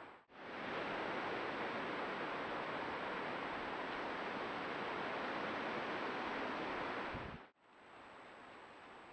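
Steady hiss of a trail camera's audio with a faint high whine running through it; the sound drops out briefly twice, just after the start and about seven and a half seconds in, and is quieter after the second break.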